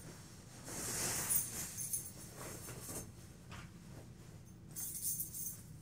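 Cloth rustling as an inmate jumpsuit is pulled on over other clothes, swelling about a second in and again near the end.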